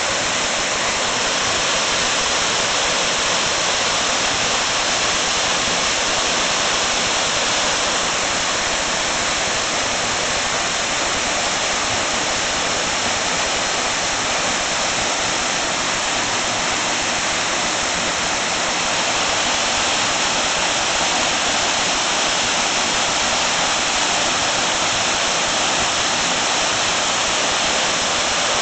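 Waterfall pouring off a rock ledge into a plunge pool, running full after heavy rain: a steady, unbroken rush of falling water, strong in the high range with little low rumble.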